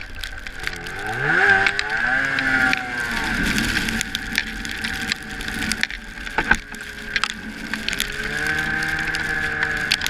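Arctic Cat ZR500 snowmobile's two-stroke engine revving up as the throttle opens about a second in, easing off a couple of seconds later, running steadily, then climbing again near the end. Frequent sharp clicks and knocks come through over the engine.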